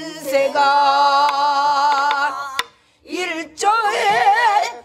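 A woman singing pansori in a strong full voice: one long held note with heavy vibrato, then after a brief pause another wavering phrase. A single sharp knock about two and a half seconds in, typical of a buk drum stroke marking the rhythm.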